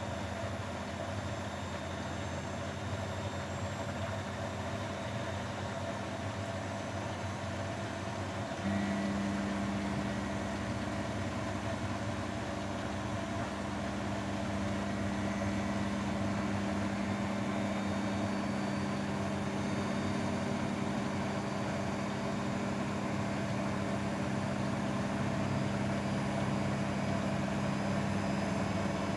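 Grundig washing machine running with a steady motor hum. About nine seconds in, a stronger, higher steady hum sets in as the motor shifts to a new speed.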